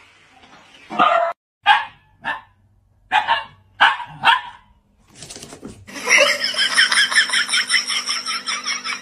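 A dog barks about six times in short, separate barks. About six seconds in, a continuous, fast-pulsing sound starts.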